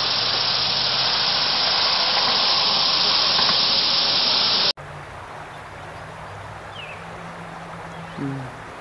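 A loud, steady hiss of outdoor background noise that cuts off abruptly about halfway through. It gives way to a much quieter outdoor background with a faint low hum and a brief short sound near the end.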